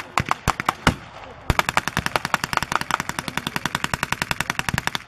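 Machine gun firing blanks in one long rapid burst of about three and a half seconds. A few scattered single shots come before it.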